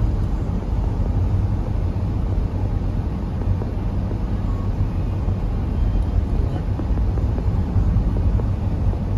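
Steady low rumble of a car driving at road speed, heard from inside the cabin: engine and tyre noise on the road.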